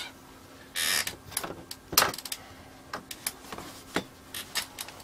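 Off-screen handling of small metal hand tools: a short scraping rustle about a second in, then a run of light, irregular clicks and taps.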